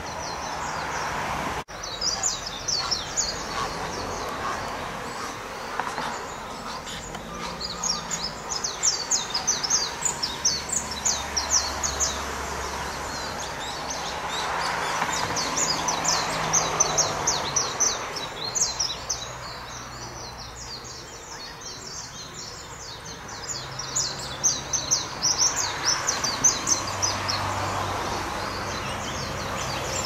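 Rapid runs of short, high-pitched chattering calls, several a second, coming in bursts over a steady outdoor background; likely grey heron nestlings begging at the nest.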